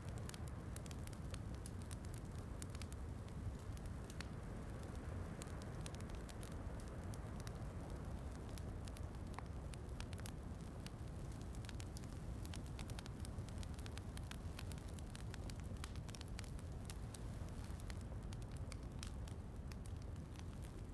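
Fireplace crackling with frequent small, sharp pops over a steady rush of rain.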